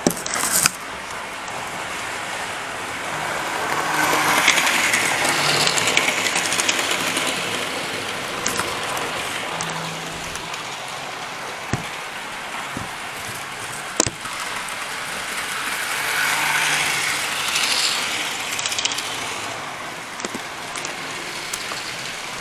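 Model train running on a tabletop layout, its motor and wheels rumbling on the track. It comes past close by twice, growing louder and then fading each time, with a few sharp clicks.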